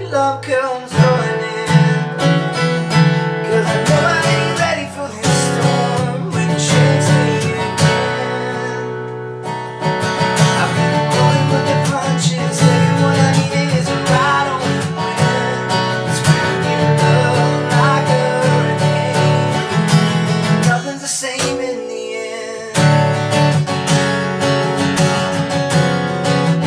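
Acoustic guitar strummed in a steady rhythm, easing to a quieter ringing chord about 21 seconds in before the strumming picks up again.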